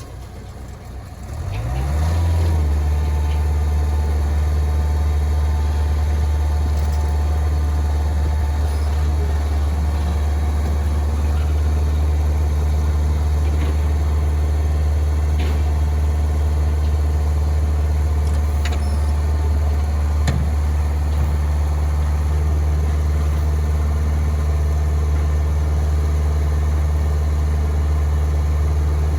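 LeeBoy 8500D asphalt paver's diesel engine starting about a second and a half in, its pitch rising briefly as it catches, then running steadily. A few light clicks sound over it.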